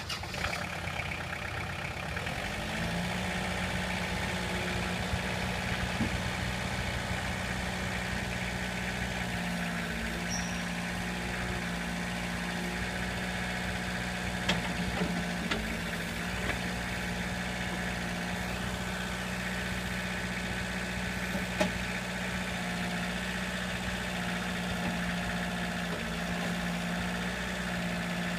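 Kubota KX101 mini excavator's diesel engine running steadily near idle, its note stepping up slightly about three seconds in. A few short, sharp knocks stand out over the engine about halfway through and again later.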